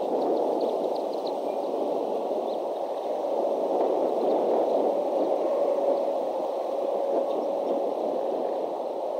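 Steady rushing noise picked up by the nest-cam microphone, with a faint steady hum underneath.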